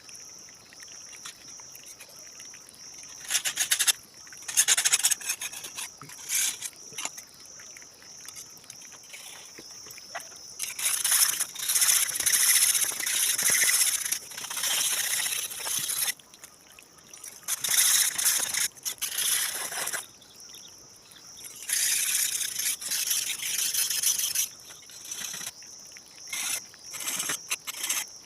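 An old knife blade being worked by hand with an abrasive, in stretches of rapid rubbing strokes on metal lasting a few seconds each, with pauses between. A steady high insect chirr runs behind.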